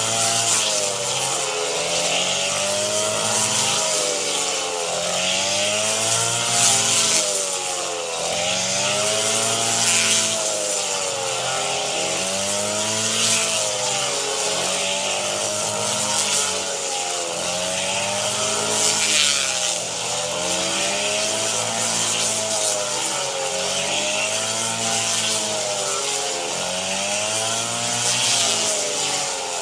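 Small engine of a rice-harvesting machine running under load, its pitch rising and sagging in a regular cycle about every two to three seconds as it cuts, with a steady hiss above it.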